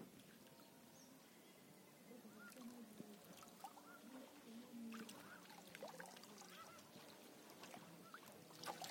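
Near silence: faint water sloshing and dripping as a cast net is drawn in and gathered in shallow pond water, with faint distant bird calls between about two and six seconds in.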